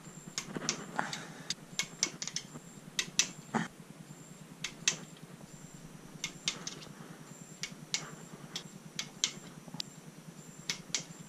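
Sharp, irregular metallic clicks, some in quick little clusters, from a torque wrench ratcheting and clicking off as bolts on a Honda B18C engine block are tightened to torque.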